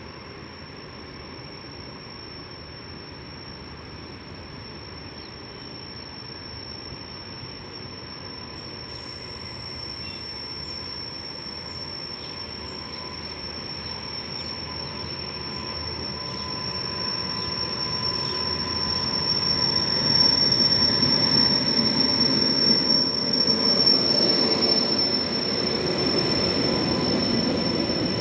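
Train hauled by a WAP7 electric locomotive approaching, its rail noise growing steadily louder, with a continuous high-pitched squeak held on one pitch over it. The cause of the squeak is unknown.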